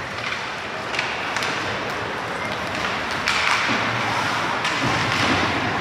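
Ice hockey play: scattered sharp taps and clacks of sticks and puck over a steady rink hiss, which grows louder about three seconds in.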